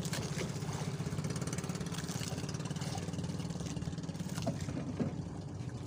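Small boat engine idling with a steady, rapid putter, with a couple of light knocks near the end.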